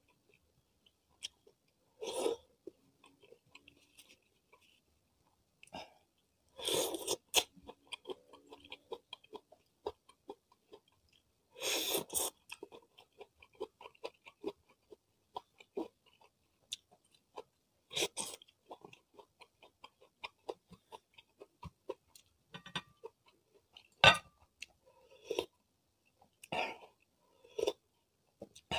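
Close-miked chewing of food, with crunchy bites, wet mouth clicks and smacking coming in short bouts every few seconds. Near the end there is one sharp click, the loudest sound.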